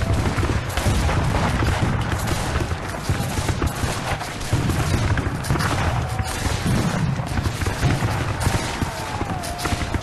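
Battle sound effect of dense, continuous gunfire: many shots overlapping without a pause, like a massed volley.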